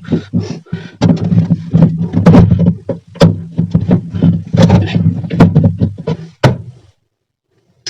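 Repeated sharp clicks and knocks of plastic refrigerator parts being handled while screws are taken out, over a low steady hum. The sound cuts out suddenly about seven seconds in.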